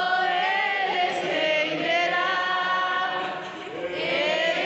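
A group of voices singing together without instruments, holding long notes that slide up and down, with a brief drop in the singing about three and a half seconds in.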